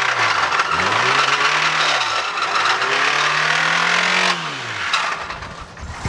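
Honda Civic four-cylinder engine revved up and down about three times over a loud clatter, which eases off about four seconds in. The engine has really bad rod knock.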